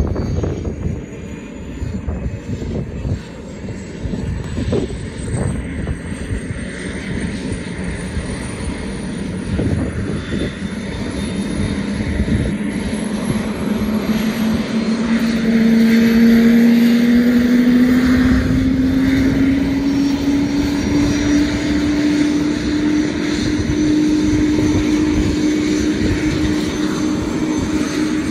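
AS350 Squirrel helicopter starting up: the turbine's high whine climbs steadily in pitch while a lower hum rises and grows louder as the engine and rotor spool up, over a steady rumble.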